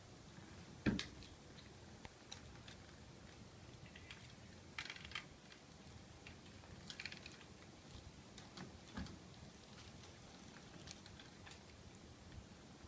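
Scattered light clicks and taps over faint room noise, with a single thump about a second in.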